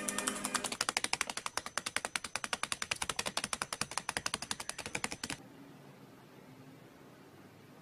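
Blue masked lovebird pecking and tearing at a sheet of paper with its beak: a fast, even run of clicks about ten a second that stops abruptly about five seconds in, followed by faint room noise.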